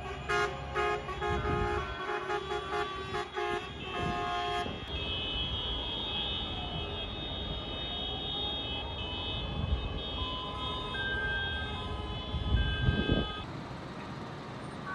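Vehicle horns of a tractor convoy honking in many short blasts over low engine rumble, then a long held high horn tone with a slow rising and falling siren-like wail and a few short toots. Heavy engine rumble swells loudest near the end.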